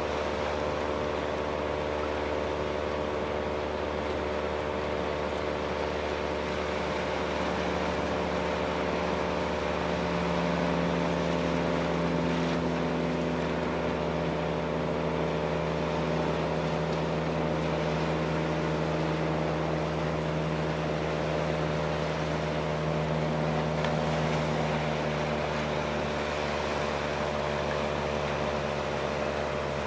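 Steady engine hum with several steady tones, a lower tone growing a little louder about ten seconds in.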